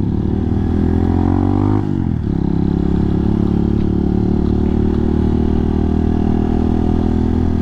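Hawk 250 dual-sport motorcycle's single-cylinder engine under way, heard from the rider's helmet. Its note rises for about two seconds as it accelerates, drops sharply as the rider shifts up, then holds steady.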